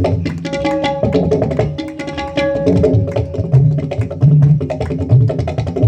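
Tabla played solo in a fast rhythmic pattern. The bayan gives deep, booming low strokes, and the dayan adds crisp strokes with a couple of ringing pitched notes in the first half.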